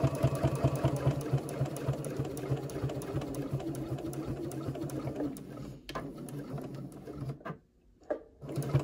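Domestic sewing machine stitching at a fast, even rhythm while top-stitching along a zipper through layered fabric, slowing and stopping about five seconds in. A few light clicks follow.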